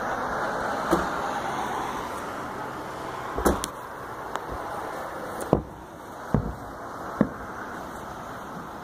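Distant fireworks going off: about six sharp bangs at irregular intervals, over a steady background noise.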